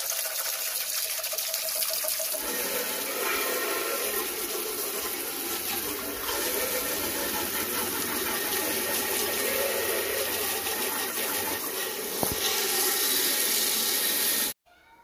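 Water jet from a garden hose splashing onto black plastic cassette-player cabinet halves and wet concrete: a steady rushing spray that grows fuller about two seconds in and cuts off suddenly near the end.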